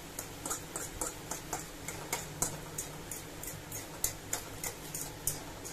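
Hot oil crackling and popping in irregular sharp ticks, about three or four a second, as boiled noodles coated in cornflour shallow-fry in a kadai. A low steady hum runs underneath.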